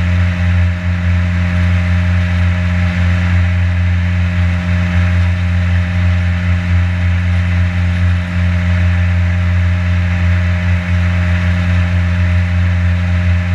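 Boat motor running at a steady speed while the boat cruises, a constant low drone with a hiss of water and wind over it.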